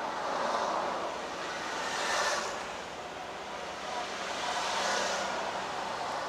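Road traffic passing a stationary car, heard from inside the cabin: several vehicles swell by one after another, about two to three seconds apart.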